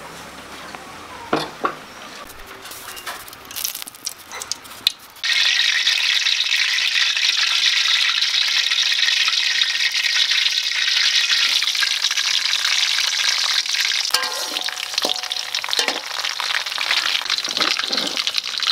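A few clinks and knocks of pans and utensils, then about five seconds in a sudden, loud, steady sizzle as sliced garlic goes into hot oil in a wok and keeps frying, with a few stirring knocks near the end.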